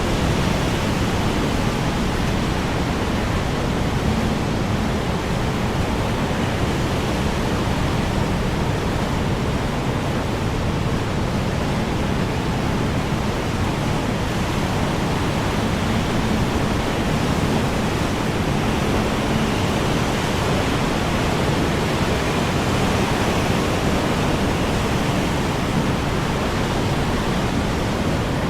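Strong wind blowing as a steady, even rushing noise, heaviest in the low range, with no distinct gusts rising or falling.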